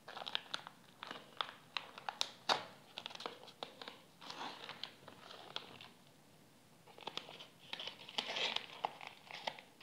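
Paper courier pouch being opened by hand: irregular crinkling and small tearing clicks as its sealed edge is picked at, then denser crinkling near the end as scissors cut along the edge.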